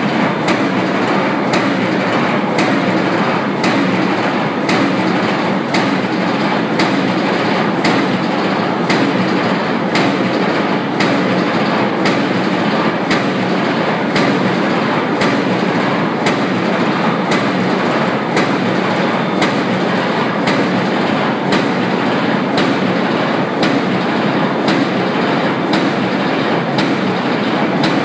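800-ton blanking press running a slap die at 56 strokes per minute: a sharp bang with each stroke, about once a second, over a steady loud machine din.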